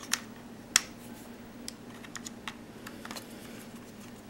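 Light plastic clicks and ticks of a Torx screwdriver bit and fingers working at the screws in a Motorola brick phone's plastic case. Two sharp clicks come in the first second, then scattered smaller ticks.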